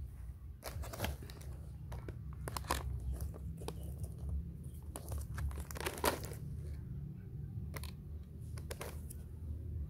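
Irregular crinkling and crackling as a monkey in a disposable diaper shifts and climbs about on a bench, the sharpest crackle about six seconds in, over a steady low rumble.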